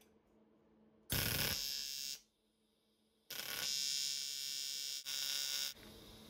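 AC TIG welding arc on the aluminium cylinder head, a steady electric buzz. It comes in three runs: one about a second long, then after a silent gap a longer run that breaks briefly near its end.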